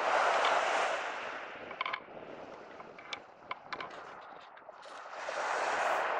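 Small waves washing onto a beach: a hiss of surf that dies away about two seconds in and swells again near the end, with a few faint clicks in the lull.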